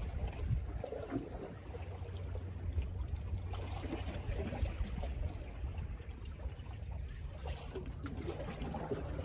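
Small waves lapping and trickling against shoreline rocks, over a steady low rumble.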